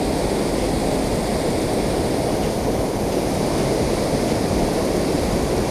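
Steady rush of water pouring over a concrete spillway into churning whitewater.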